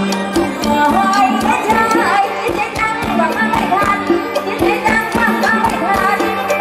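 Live Isan lam phloen folk music: a melody line over a steady drone note, with quick, sharp rhythmic clicks of mak kap kaep wooden clappers keeping the beat.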